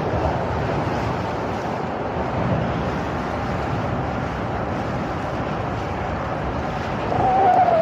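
Steady rumbling, rushing noise of a sailboat under way on the river. About seven seconds in, a single slightly wavering tone comes in and the sound gets louder.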